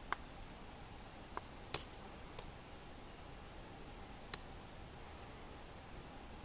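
Five sharp clicks at irregular intervals over a steady faint hiss, the last about four seconds in.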